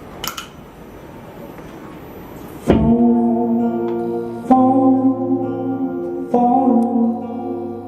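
Instrumental music intro: a soft hissing texture, then from about a third of the way in three sustained chords struck roughly every two seconds, each held and slowly fading.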